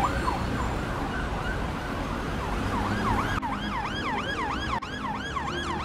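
Siren sound effect in a fast yelp, its pitch sweeping up and down about three times a second over a low rumbling noise. The siren fades to faint about half a second in and returns about two and a half seconds in.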